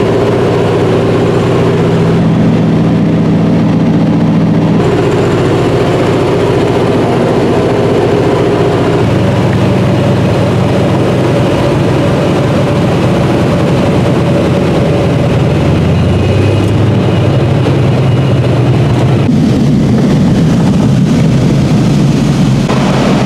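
Floatplane's piston engine and propeller heard from inside the cabin, running loud and steady, its pitch shifting in steps several times as the power changes while the plane runs across the lake on its floats.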